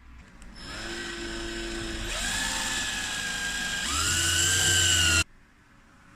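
Power drill driving screws into the desktop to mount the cable basket: the motor whines for about five seconds, its pitch shifting as the screw bites, louder near the end, then stops abruptly.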